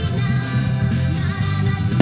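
Rock-style anime song with singing, guitar and a strong bass line, played for a music fireworks show.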